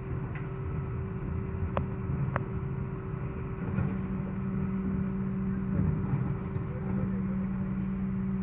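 Mercedes refuse truck with a Heil Powerlink body running steadily, a constant hum muffled through a window pane. Two sharp knocks come about two seconds in.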